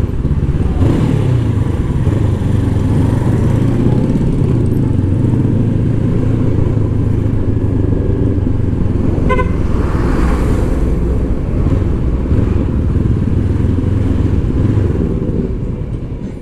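Motorcycle engine running steadily at low town speed, heard from the rider's seat. A short vehicle horn toots once about nine seconds in. The sound fades out near the end.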